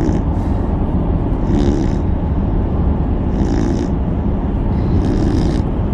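Beagle snoring, a snore about every second and a half to two seconds, over the steady road rumble of a moving truck's cab.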